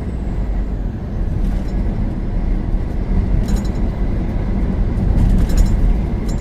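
Steady low rumble of a semi truck heard from inside the cab, with a few faint clicks.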